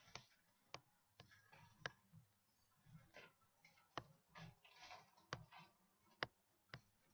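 Faint computer mouse clicks, irregularly spaced, mixed with short scratchy scrapes of the mouse being dragged to draw words.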